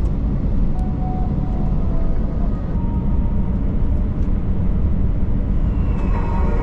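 Steady low rumble inside the cabin of an Airbus A321 taxiing, its jet engines at taxi power. Faint tones come in near the end.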